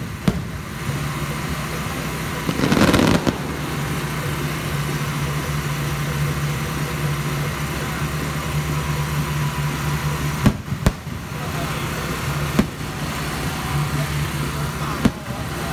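Aerial fireworks shells going off overhead: a burst of noise lasting under a second about three seconds in, then several sharp bangs spread through the second half. Under them runs a steady low engine hum.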